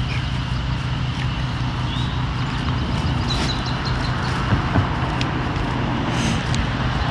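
Portable generator running with a steady low hum, under the scrape and chop of a steel shovel cutting into turf and soil, with a couple of sharper strikes about halfway through. A few short bird chirps.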